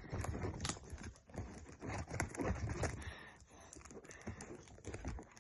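Plastic shrink-wrap being picked at and torn off a trading-card box: a long run of irregular crinkling and crackling.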